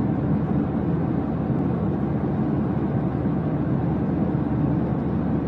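Steady, even rumbling noise, mostly low-pitched, with no breaks or changes.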